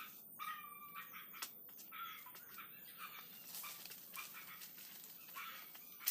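Faint, short high-pitched animal cries, repeated several times with pauses between, among a few light clicks.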